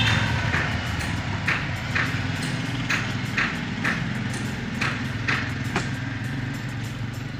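Sanyo CRT television's speaker giving short bursts of static hiss roughly every half second over a low steady hum, as its front-panel buttons step through channels.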